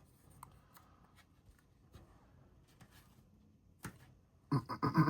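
Faint handling of cardstock paper pieces: soft scattered ticks and rustles, with one sharp click a little under four seconds in. A brief vocal murmur near the end.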